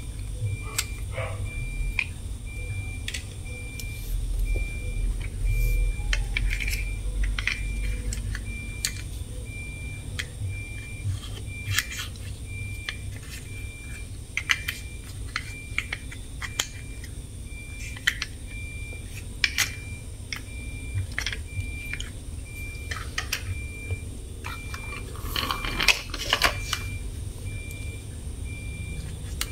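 Sharp clicks and taps of hard plastic toy trucks being handled, over an even electronic beeping that repeats steadily throughout.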